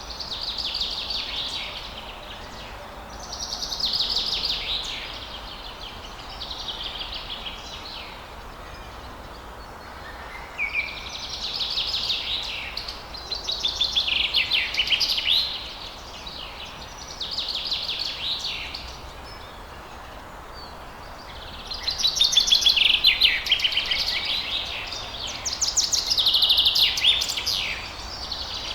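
Songbirds singing at dawn: a string of high, warbling phrases, each a second or two long, repeating with short pauses between them, over a faint steady background hiss.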